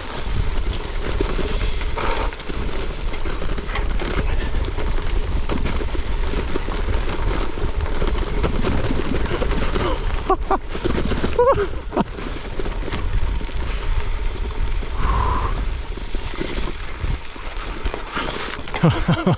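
Wind buffeting the microphone over the rumble and rattle of a bike running fast down a rough trail, with a few short voice sounds about halfway through.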